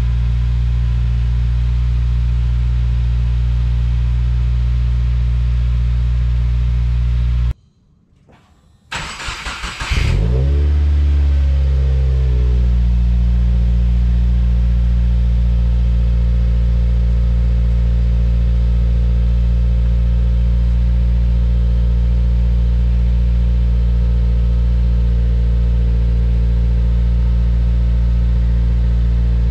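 The 2016 Subaru WRX's turbocharged flat-four idles steadily on a cold start through a Subaru STI/SPT cat-back exhaust and Cobb catted J-pipe. After a short break, the same engine, now breathing through a Cobb titanium cat-back, starts with a brief crank. It flares up, falls in pitch and settles into a steady cold-start high idle.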